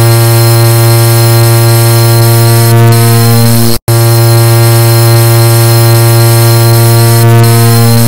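Car horn sound stacked into a loud, continuous harsh buzzing drone, one steady pitch with many overtones. It cuts out for an instant about four seconds in and starts again unchanged.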